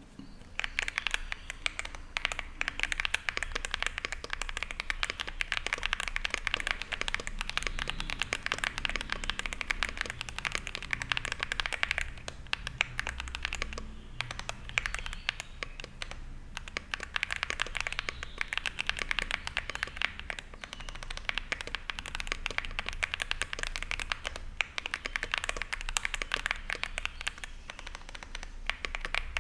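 Zoom65 mechanical keyboard with WS Brown tactile switches, aluminium plate, IXPE foam and PBT keycaps, typed on quickly in a dense run of key clacks that eases off a few times.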